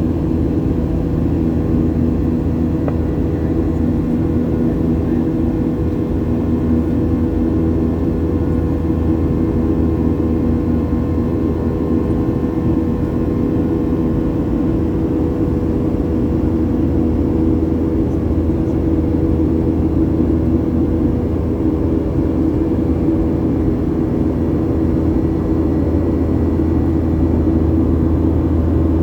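Airliner cabin noise: the engines running steadily with a low, even drone and a few constant hum tones, unchanging throughout.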